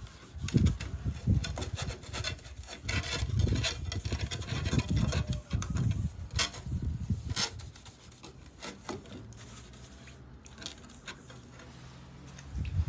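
A greasy cooking pot being scrubbed and wiped, with irregular rubbing and scraping strokes that thin out to a few light scrapes after about seven seconds.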